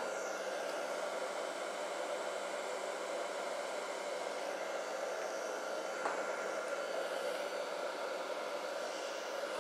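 Hand-held hair dryer running steadily on its hot setting: an even rushing blow of air with a faint motor whine.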